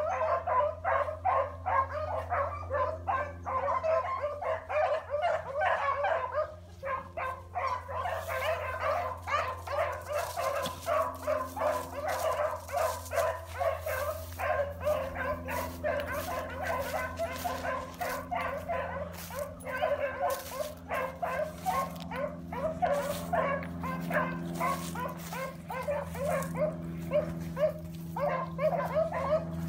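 A pack of rabbit hounds baying on a rabbit's trail: many voices overlapping in a steady run of quick, excited cries, with a brief lull about six seconds in.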